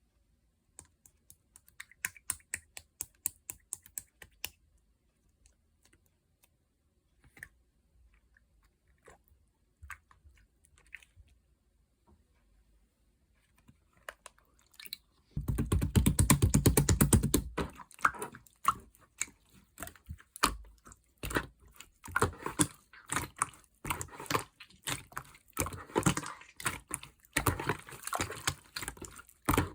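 Pink two-layer slime worked by hand, making sharp sticky clicks and pops. A quick run of clicks opens it, then only a few faint ones, a dense loud squishing spell about halfway, and steady rapid clicking after that.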